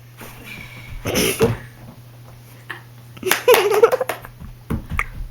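A boy laughing in bursts: a breathy outburst about a second in, then a louder, high, wavering laugh in the middle and a short one near the end.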